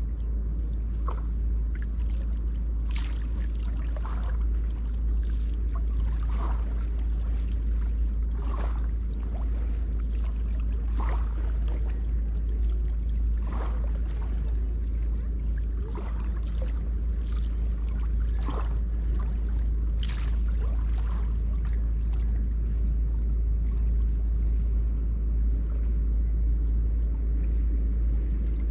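Small river waves lapping and splashing against the bank, a splash about every two to two and a half seconds, over a steady low rumble.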